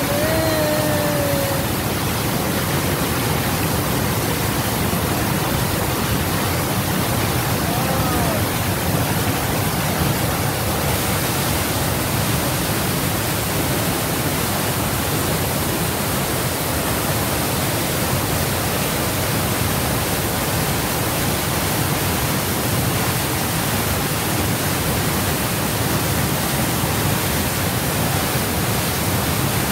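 White water rushing and splashing steadily down a concrete channel, a loud, even torrent with heavy spray.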